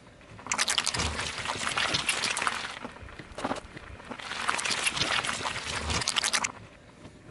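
A car tyre rolling onto a block of red gelatin jelly and squashing it: a squelching, crackling sound made of many small pops, heard twice, each time for about two seconds.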